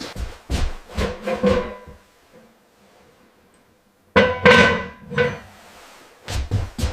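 Hand-tool hammering on wood: quick runs of sharp knocks with a short ringing tone, about five in the first second and a half, then after a pause of about two seconds another run of four, and a few more near the end.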